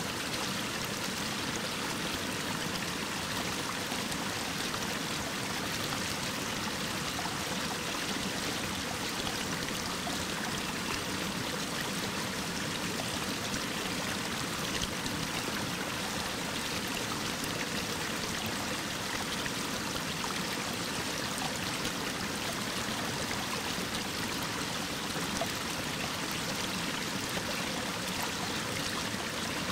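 Mountain stream's waterfall pouring down a rock face: a steady, even rushing of falling water.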